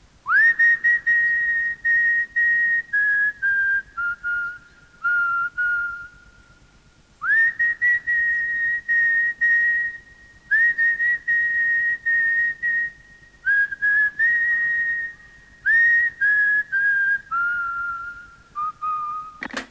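A person whistling a slow tune in five phrases. Each phrase slides up into a held high note, then steps down through lower notes, with short breaks between phrases.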